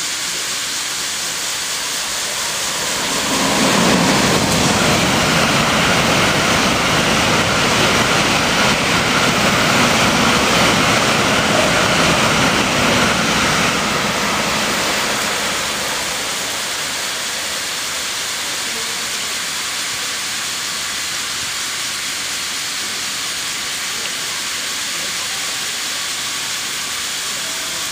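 A 700 series Shinkansen passing through the station at speed. Its rumble swells about three seconds in, holds for about ten seconds and fades away. Under it runs the steady hiss of the snow sprinklers spraying the tracks.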